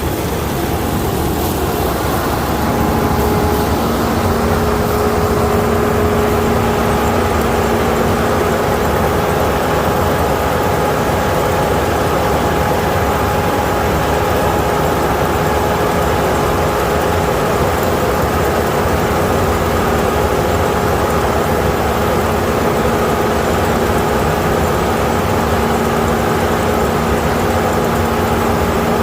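Kukje KC5130 combine harvester running steadily while harvesting rice. About three seconds in, a steady whine joins the engine sound and it grows a little louder.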